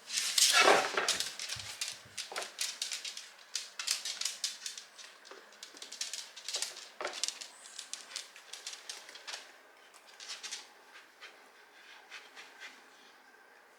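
A pet's short cry in the first second or so, then a run of light clicks and scratches that thin out and die away near the end.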